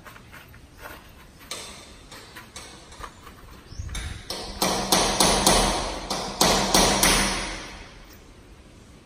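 Hammering: a few scattered knocks, then a loud run of sharp blows about four to seven and a half seconds in, with a low hum underneath while the run lasts.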